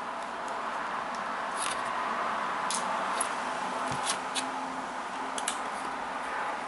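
Small, sharp clicks and ticks of a screwdriver working the small screws that hold a laptop's LCD panel in its lid, scattered irregularly over a steady background hiss.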